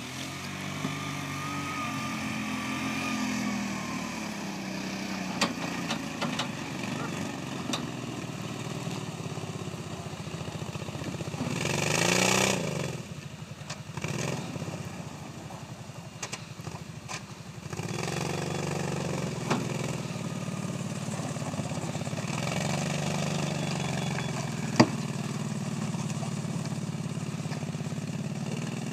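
Engines of tracked side-by-side UTVs running and revving under load as they pull a skid house onto a trailer, their pitch rising and falling, with a loud swell about twelve seconds in. A few sharp knocks sound along the way, the loudest near the end.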